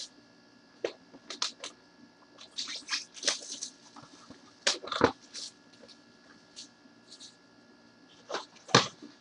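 Gloved hands handling a small cardboard trading-card box and its foil wrapper: scattered rustles, crinkles and light knocks, with a sharper knock about five seconds in and another near the end. A faint steady hum lies underneath.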